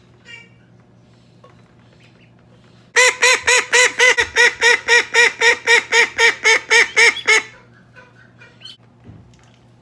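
Call duck quacking loudly in a rapid, even run of about twenty quacks, roughly five a second, starting about three seconds in and stopping abruptly after about four seconds.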